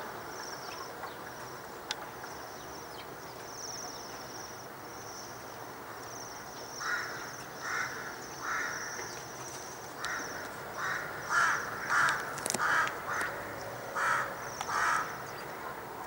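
Flock of Bohemian waxwings giving their high, thin trilling calls over and over. About halfway through, a series of short, louder, lower-pitched sounds joins in and comes at irregular gaps.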